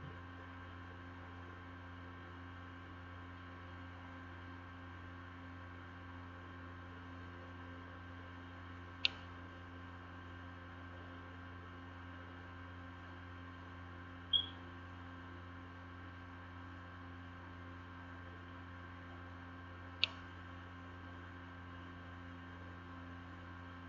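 Steady low electrical hum with a faint buzz above it, the background noise of a computer's recording setup, broken by three short sharp clicks several seconds apart.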